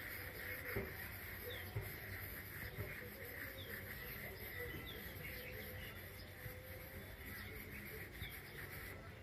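Faint scratching of a graphite pencil on paper as loose looping scribbles are drawn, with a few short bird chirps in the background.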